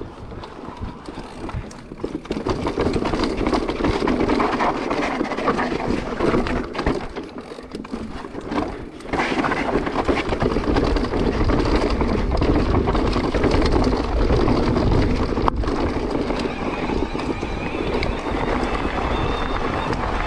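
Decathlon Stilus mountain bike riding a dirt trail: tyres rumbling over the ground with constant small rattles and knocks from the bike. It drops off briefly about eight seconds in, then comes back louder.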